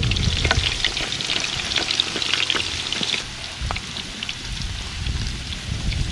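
Pork skins deep-frying in hot oil in an aluminium pot: a steady sizzle studded with many small sharp pops, the sign that the skins are starting to burst and puff into chicharrones. The sizzle thins a little after about three seconds.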